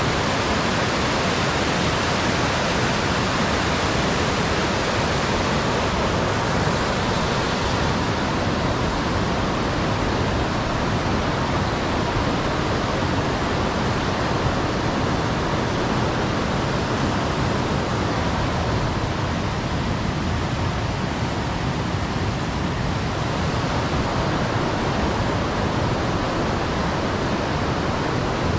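Steady rush of a waterfall's running water.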